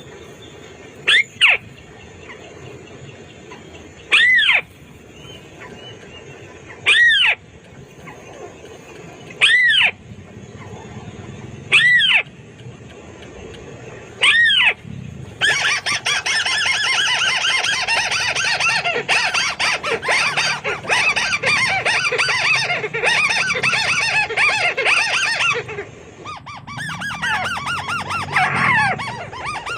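White-browed crake calls: a loud arched call repeated six times, two to three seconds apart, then a long run of rapid chattering from about halfway through, with a shorter burst near the end.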